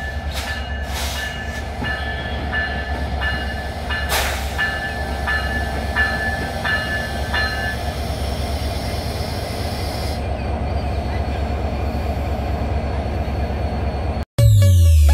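Diesel locomotive running as it draws a train slowly past, with a short high ringing chirp repeating about twice a second for the first eight seconds and a brief hiss about four seconds in. Near the end the sound cuts abruptly to electronic dance music.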